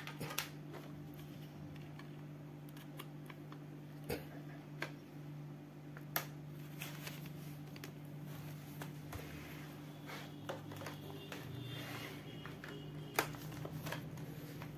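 Scattered light clicks and taps of a laptop hard drive being handled and plugged into a USB adapter, with a sharper click near the end. A steady low hum runs underneath.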